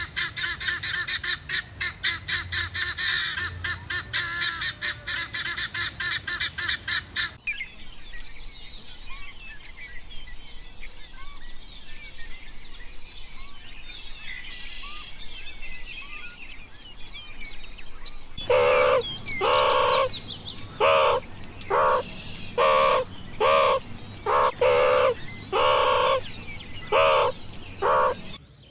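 Animal calls from three recordings in turn. First comes a fast, unbroken run of shrill repeated calls. After a cut about seven seconds in there is quieter bird chirping, and from about eighteen seconds a series of loud, clipped calls roughly one a second.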